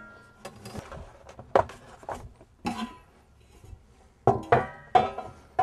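Stainless steel pot lid and pot knocking and clinking as they are handled: a series of sharp metal knocks with a short ring, sparse at first and coming closer together and louder near the end.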